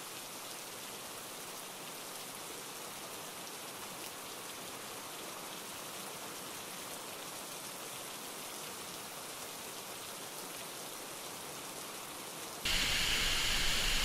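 Steady hiss of a waterfall's falling water and spray in a rock gorge, with no low rumble. It jumps abruptly louder near the end.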